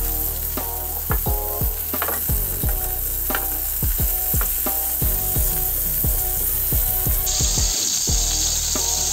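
Sausages sizzling in shallow oil in a grill pan, a steady hiss, under a regular beat of sharp hits a few times a second with short tonal notes between them, like a background music track.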